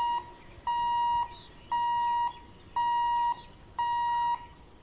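Level-crossing warning buzzer beeping steadily, one even electronic tone about once a second, each beep a little over half a second long, sounding while the crossing's boom barriers are worked.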